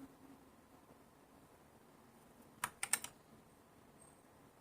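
Three or four quick keystrokes in a cluster about two and a half seconds in, on a Ziyoulang T60 mechanical keyboard with red linear switches.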